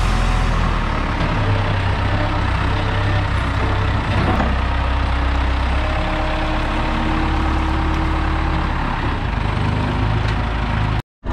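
Square Shooter SS-836 telehandler forklift engine running steadily as the machine drives, a continuous low rumble with a changing note partway through. The sound cuts out abruptly near the end.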